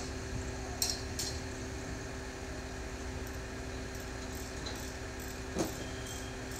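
A crane's engine running in a steady hum, with two light clinks about a second in and a brief sharp sound near the end.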